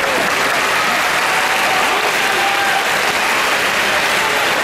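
Large crowd applauding steadily, with a few voices calling out over the clapping.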